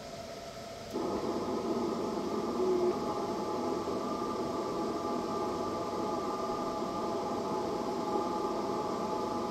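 Ham radio receiver audio from the speaker: band hiss, joined about a second in by many FT8 digital signals at once, a crowd of overlapping steady tones that hold on.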